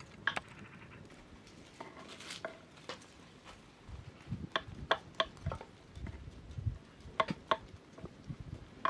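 Kitchen knife chopping mushrooms on a wooden cutting board: irregular sharp taps and dull knocks, thickest in the second half, after a few scattered clicks near the start.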